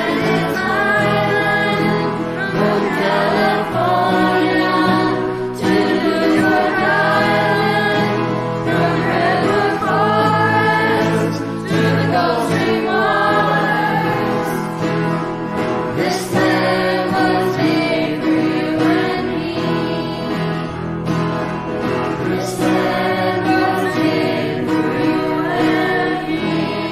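Music with a choir singing: sustained, gliding vocal lines over a steady low accompaniment.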